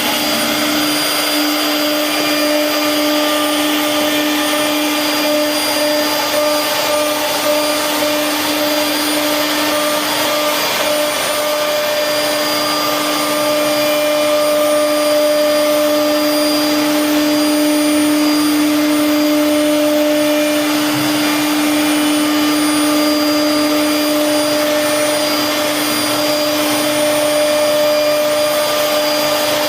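CNC wood router running: a steady spindle whine over a continuous rushing noise.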